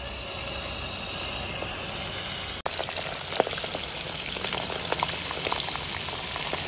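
Gas burner on a cylinder-top stove hissing steadily just after being lit. About two and a half seconds in, it cuts to a louder, dense sizzle with many small crackles as a coated chicken drumstick is deep-fried in hot oil.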